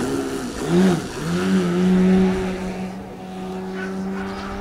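Electric 74-inch Edge 540 RC aerobatic plane's wooden propeller and motor whine during a low hover, the pitch dipping and rising with the throttle. It then holds one steady high pitch and fades as the plane pulls away.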